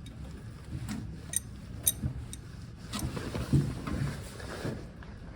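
Fuel lift pump of a 1939 Austin 12 being worked by hand, giving irregular sharp clicks and then duller knocks. The pump seems to be doing nothing, with no fuel reaching the carburettor.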